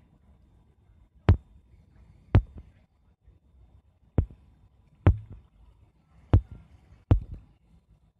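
Fingertip taps on a touchscreen tablet or phone, picked up by its own microphone as sharp knocks. There are seven taps at uneven intervals of about one second, each followed by a softer click a moment later.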